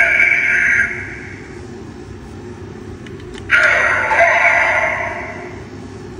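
DX Blazar Brace toy playing Ultraman Blazar's recorded grunts through its small speaker. One shout tails off about a second in, and another starts about three and a half seconds in and fades over the next two seconds.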